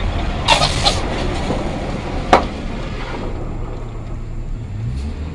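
Steady low rumble of a vehicle driving on the road, heard through a dashcam, with a short hiss about half a second in and a single sharp knock a little over two seconds in.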